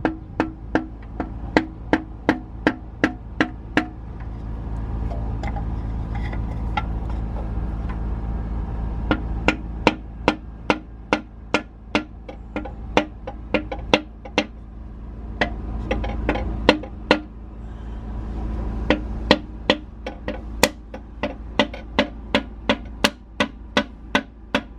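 Background music with a steady clicking, wood-block-like beat over held low notes; the beat drops out for a few seconds about four seconds in and again near the middle.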